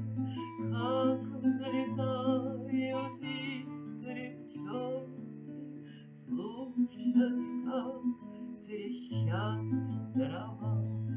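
Instrumental music from a romance song: a plucked-string melody over held bass notes, with several layered melody lines.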